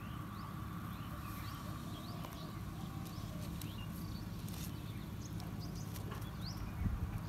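Outdoor ambience of small birds chirping: many short rising chirps scattered throughout, over a steady low rumble.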